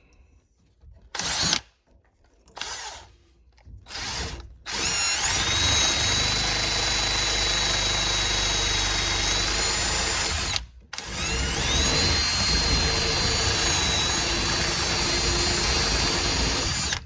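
Handheld power sander started with three short trigger blips, then run in two long stretches of about six seconds each, the second opening with a rising whine as the motor spins up. It is sanding the cut pipe end clean to take a sweated fitting rather than a press fitting.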